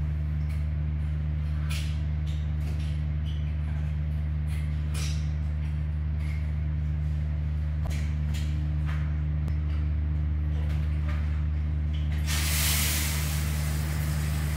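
Scattered short knocks and scrubbing strokes from cleaning a tiled shower over a steady low hum. About twelve seconds in, a handheld shower head starts spraying water for the final rinse.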